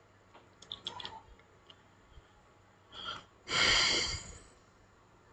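A man's short sniff, then a breath close to the microphone lasting under a second, after a few faint clicks.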